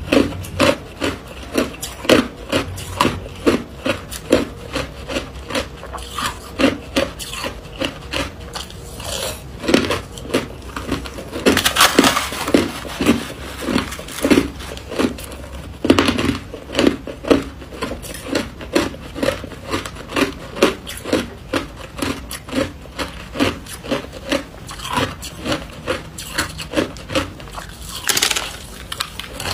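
Crushed ice crunching between the teeth as it is chewed, about two to three crunches a second. About twelve seconds in comes a longer scraping rustle as a spoon digs through the ice in the metal tray.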